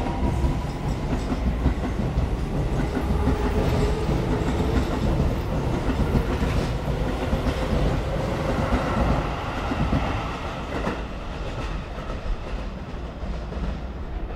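Keio Line electric train running along the track: its motors whine faintly in a slowly rising pitch while the wheels clack over rail joints. The sound fades over the last few seconds as the train moves away.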